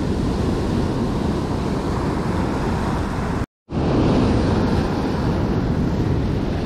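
Ocean surf washing over rocks, with wind buffeting the microphone as a steady low rumble. The sound cuts out completely for a moment about halfway through.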